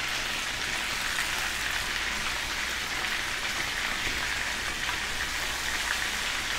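Chicken leg quarters frying in a pan of butter and olive oil: a steady, dense sizzle and crackle of hot fat.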